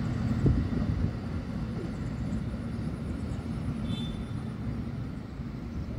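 Low rumble of a distant SRT Red Line electric commuter train (Hitachi EMU) moving away, easing off after about a second. A brief high chirp about four seconds in.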